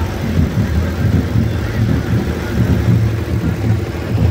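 Busy street noise: a steady low engine rumble mixed with the voices of a crowd.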